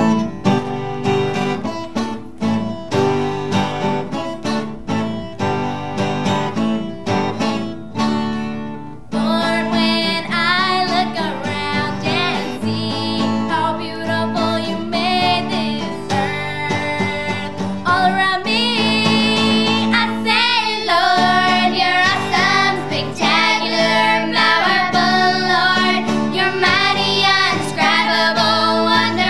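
Acoustic guitar strummed alone for about nine seconds, then young girls' voices come in and sing the song together over the guitar.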